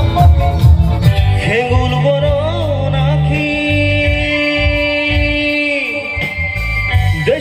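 Live band music through a PA with a man singing into a microphone, accompanied by keyboard and electric guitar over a steady bass beat. He holds one long note in the middle of the passage and starts a new phrase near the end.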